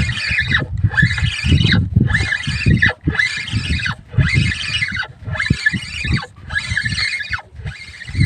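A spinning fishing reel being cranked, squeaking once with each turn of the handle, about one squeak every second. Each squeak has a rumble of handling noise under it.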